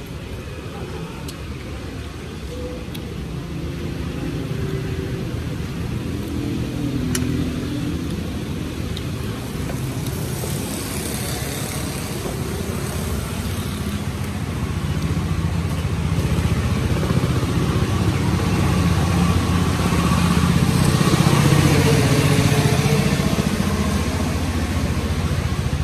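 Road traffic of motorbikes and cars passing close by, a continuous engine rumble that swells twice and is loudest about three-quarters of the way through.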